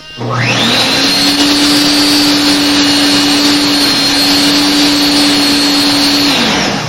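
A motor-driven machine spinning up with a loud rushing noise and a whine that quickly rises to a steady pitch, running evenly, then winding down near the end.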